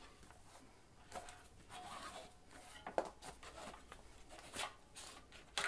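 Plastic tyre lever sliding around a bicycle wheel rim to peel the tyre off, with faint scraping and rubbing of the tyre against the rim and a sharp click about three seconds in.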